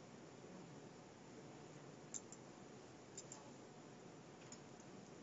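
Faint computer mouse clicks over near-silent room tone: two quick pairs of clicks about two and three seconds in, and a single click near the end.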